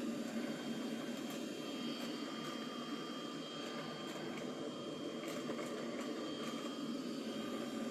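Roborock Saros Z70 robot vacuum running: a steady whir of its suction motor and brushes with a thin high whine, and a few faint clicks.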